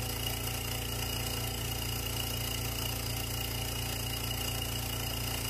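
Electric vacuum pump running with a steady low hum, pulling a vacuum on a filter flask to draw diluted perfume through filter paper.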